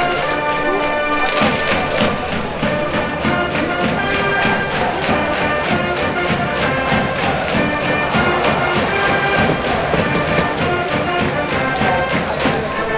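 High school brass band cheering section playing a cheer tune: brass playing held, steady notes over a regular drum beat.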